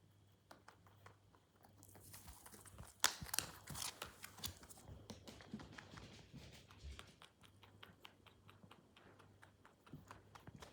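Rabbit drinking water: a rapid run of small clicks like fast typing, busiest and loudest a few seconds in, then carrying on more sparsely.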